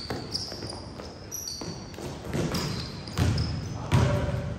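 Basketball bouncing on a gym floor, several dull, uneven thumps, mixed with short high sneaker squeaks on the court.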